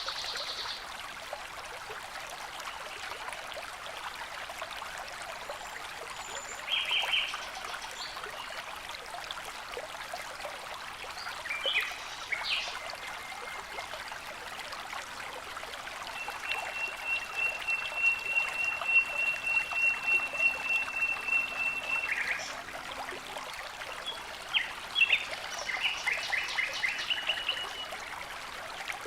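Running water trickling steadily, with birds calling over it: several short high trills, and past the middle one long, even, high-pitched trill lasting about six seconds.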